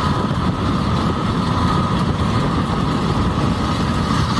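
John Deere farm tractor's engine running steadily as it pulls a rotary hay rake through cut grass, a continuous low rumble with a steady whine over it.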